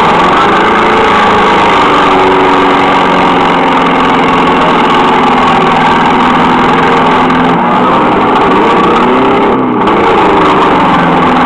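Several demolition derby car engines running at once, loud, their notes rising and falling as they rev, most markedly about eight to ten seconds in.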